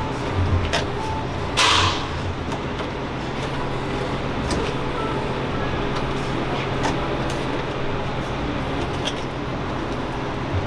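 Stiff clear plastic cake-box cover being handled and fitted over a cake: crinkles and light clicks of the plastic, the loudest crinkle about two seconds in, over a steady low hum.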